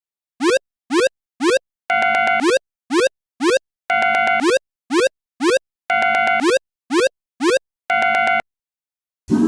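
Electronic level-crossing-style warning signal from a cartoon crossing: short upward-gliding chirps, about two a second, alternating with a longer held beep, in a pattern that repeats every two seconds. It stops about a second before the end, and another loud sound starts just at the end.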